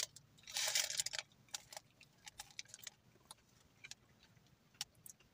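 A person eating a hash brown: a short crackle as it is bitten about half a second in, then scattered small clicks of chewing.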